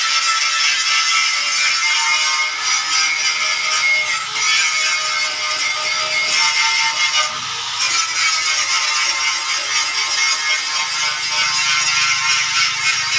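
Electric angle grinder running against a metal gate frame: a steady high whine with scraping. It eases off briefly three times.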